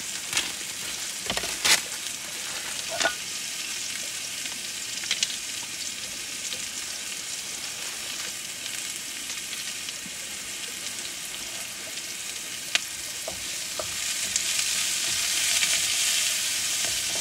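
Mushrooms frying in chorizo oil in a pan on a gas camping stove, a steady sizzle with a few light knocks. The sizzle grows louder near the end.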